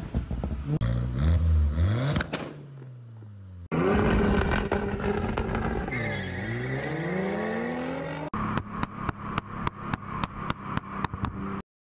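Car engine revving and dropping back, heard from the exhaust in several spliced clips, with the pitch climbing and falling. In the last few seconds the engine runs steadily under regular sharp ticks, about three or four a second, then the sound cuts off abruptly.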